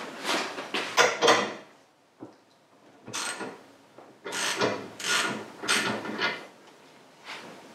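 Hand tools working on a motorcycle's front end: a run of short, noisy mechanical strokes in clusters of two to four, about half a second apart.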